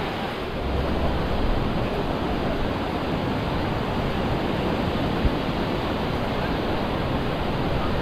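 Surf washing onto a sandy beach in a steady rush, with gusts of wind on the microphone.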